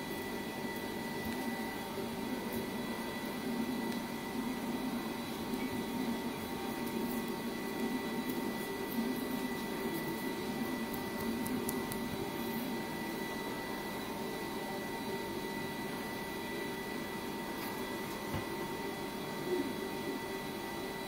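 A steady machine hum with a thin high whine, unchanging throughout, with a few faint crackles.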